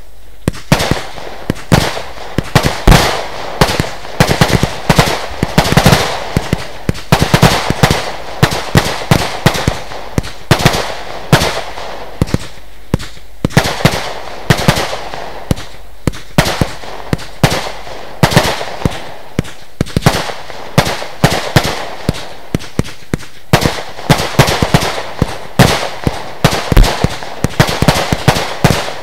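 Lesli Dezemberfest 512-shot compound fireworks cake firing a rapid, unbroken run of shots: sharp launch bangs and bursting shells, several a second, with hardly a pause.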